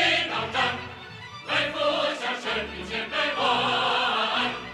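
Background music with a choir singing held notes, dropping back about a second in and swelling again.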